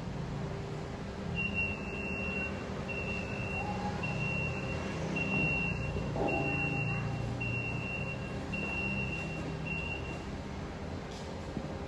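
Vehicle reversing alarm sounding eight evenly spaced high beeps, about one a second, over the steady low rumble of an engine running.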